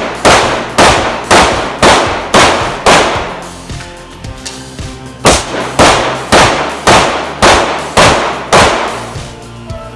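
Glock 17 pistol loaded to 9mm major firing rapid strings: six shots at about two a second, a pause of about two seconds, then seven more at the same pace.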